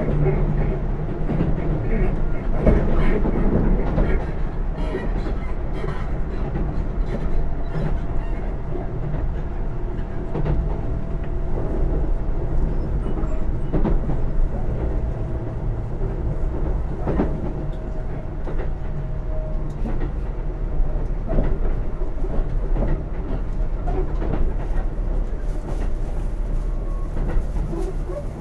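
Interior running sound of a Keisei AE100 series train car in motion: a steady rumble of wheels on rail, with scattered clicks over rail joints. A faint steady whine sits over it for several seconds in the middle.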